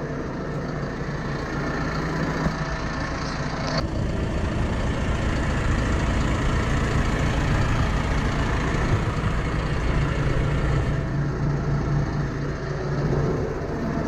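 Steyr 4110 Profi CVT tractor's engine idling steadily, with a single sharp click about four seconds in.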